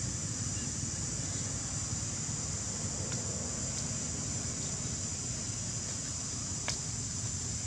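Steady high-pitched drone of an insect chorus, with low wind rumble on the microphone underneath. A single short click sounds near the end.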